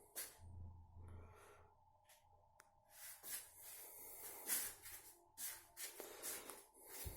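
Faint irregular rustling and shuffling noises, several a second from about three seconds in, over quiet room tone in a small room.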